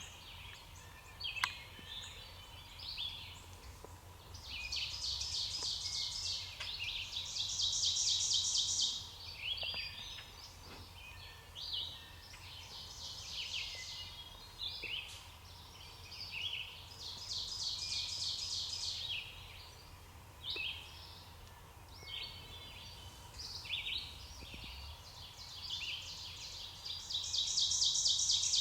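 Woodland songbirds singing: scattered high chirps, with a loud song of quickly repeated high notes coming back every several seconds, each run lasting two to three seconds.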